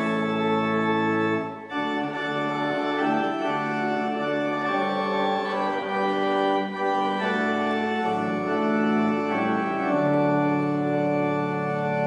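Church organ playing a hymn tune in held chords that change every few seconds.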